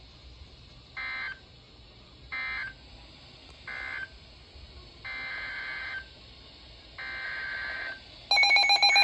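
Emergency Alert System SAME data bursts: three short end-of-message bursts from the flash flood warning, then two longer header bursts for the next alert. A loud, steady EAS attention tone begins near the end.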